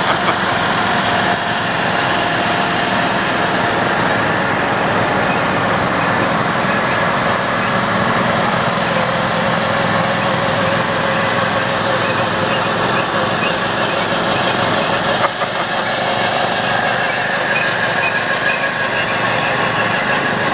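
Lawn mower engines running steadily.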